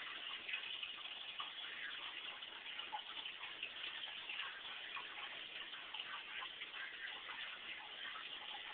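Aquarium water trickling and bubbling, with faint irregular ticks.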